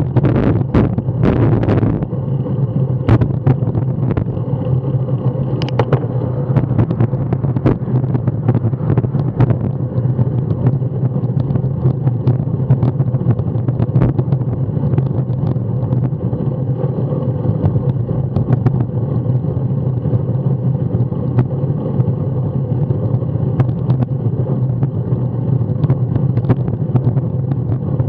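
Wind rushing over the microphone of a camera on a moving bicycle, with road rumble and frequent small knocks and rattles from bumps in the road surface. Heavier gusts in the first two seconds, then a steady rumble.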